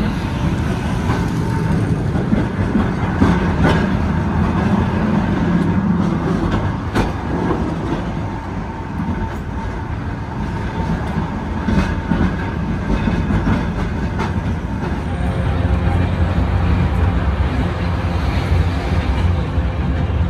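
Vintage tram running along its track: a steady rumble with sharp clicks as the wheels pass over rail joints.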